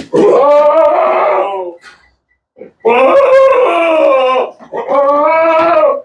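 A goat bleating loudly: three long calls of more than a second each, the second and third close together.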